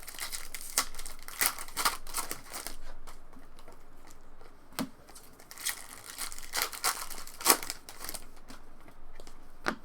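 Trading card packs being handled and torn open: wrappers crinkling and tearing in a string of short rustles, with a few sharp clicks.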